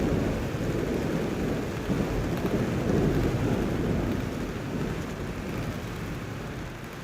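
Thunder rolling in a long, low rumble, loudest in the first half and slowly dying away over the last few seconds, over a steady hiss.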